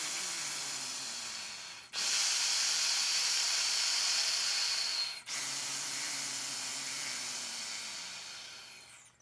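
Long, slow breaths drawn in and blown out in turn through the narrow straw of a Breath Builder breathing trainer: three breaths in all, each a hiss of rushing air a few seconds long, with the middle one the loudest. This is the long-tone breathing exercise for building wind players' air support.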